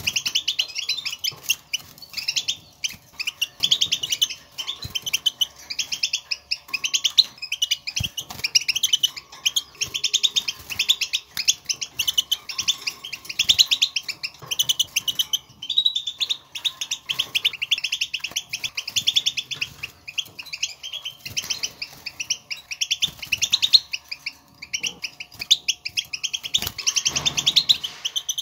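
European goldfinch twittering: quick, dense runs of high chirps in phrases a second or two long, with short breaks between them. This is the 'batbata' contact twitter that goldfinches use to call to one another and signal where they are, a sound that sets caged goldfinches singing.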